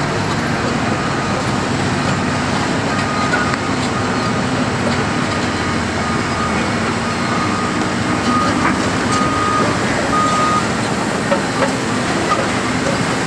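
Diesel wheel loaders and trucks working in a coal pit, a steady heavy-equipment engine drone, with a faint backup alarm beeping repeatedly through the middle as a loader reverses.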